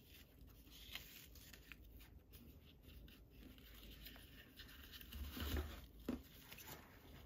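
Faint rustling and light scratching as the adhesive-backed mesh fabric is peeled away from a HomePod mini speaker, with a soft bump about five and a half seconds in and a small click just after.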